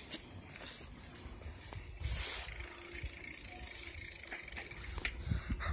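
Bicycle coasting on asphalt: the rear hub's freewheel ticking over a low rumble from the tyres, which gets louder about two seconds in.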